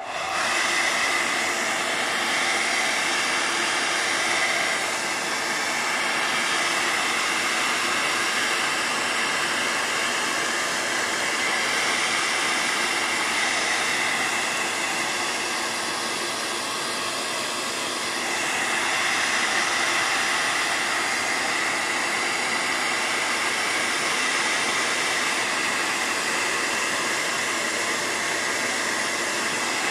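Handheld electric hot-air dryer switched on and blowing steadily to dry a wet layer of paint, with small shifts in loudness as it goes.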